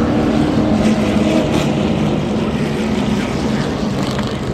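Loud, steady low engine drone whose pitch slowly falls.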